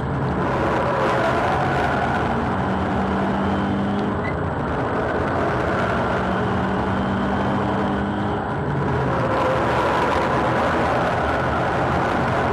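Subaru WRX STI (VAB) with a boost-up EJ20 turbocharged flat-four, its engine running steadily as the car laps a circuit, heard from inside the cabin. The engine note dips briefly about four seconds in and again about eight and a half seconds in.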